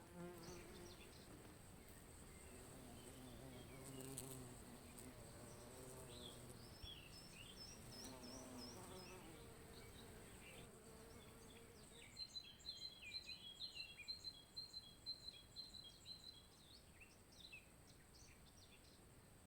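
Faint buzzing of bees, wavering in pitch, with small birds chirping in quick runs of short high notes that grow busier in the second half.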